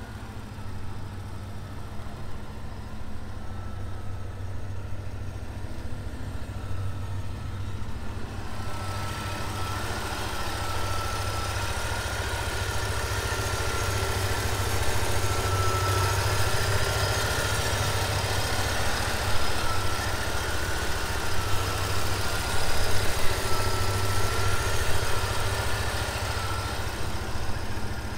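1985 Chevrolet Corvette's 5.7-litre tuned-port-injection V8 idling steadily, with a thin high whine over it. The sound grows louder and brighter about eight seconds in.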